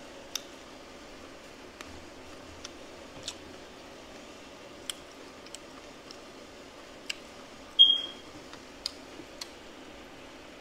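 Close-up eating sounds: scattered short clicks of chewing and of a fork against a plate, with one louder clink that rings briefly about eight seconds in.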